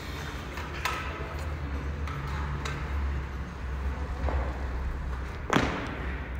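Steady low hum in a large room, with a few light clicks and one sharp knock about five and a half seconds in.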